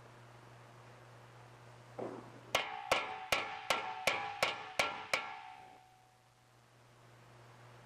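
A body hammer strikes a torch-heated spot on a sheet-steel motorcycle fender backed by a wooden block. It lands eight sharp, ringing blows at about three a second, heat-shrinking the metal.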